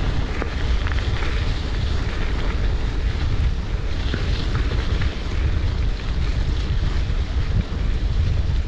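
Wind buffeting the microphone of a camera on a moving bicycle, a steady low rumble, with the bike's tyres rolling over a gravel track and faint rattles.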